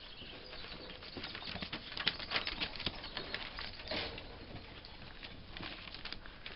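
Schipperke puppies scrambling over newspaper and a plastic tarp: faint, irregular rustling and crinkling of paper and the patter of small paws, a little louder about four seconds in.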